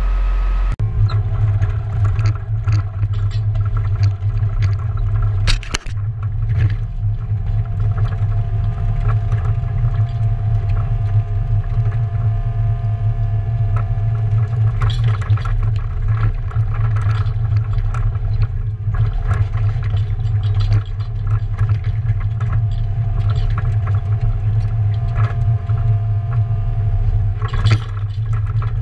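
Mini excavator's diesel engine running steadily under load while the bucket digs and scrapes through soil and stones, with frequent knocks and clatters. A steady higher whine rises over the engine for a few seconds at a time.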